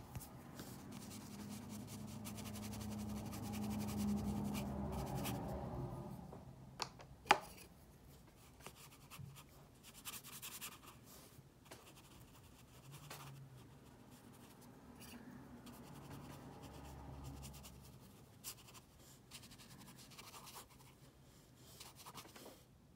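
Light scratching and rubbing of a pen or brush tip on textured watercolour paper, with scattered small ticks and one sharp tap about seven seconds in. A low background hum swells over the first six seconds and then fades.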